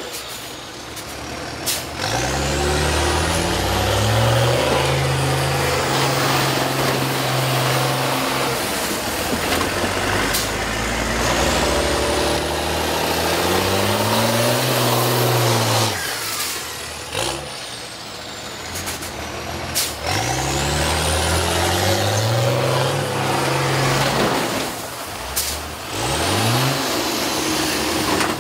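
School bus engines revving hard under load, their pitch climbing in steps and then falling away, three or four times. Several sharp crashes come in between as the buses ram each other.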